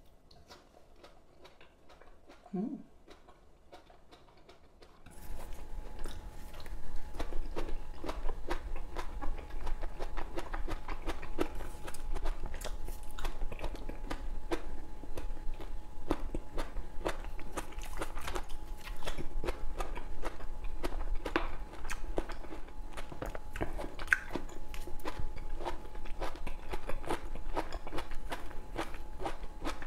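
Close-miked chewing and biting of raw tomato slices sprinkled with stevia: mouth sounds with many small clicks. They start about five seconds in, after a near-quiet opening.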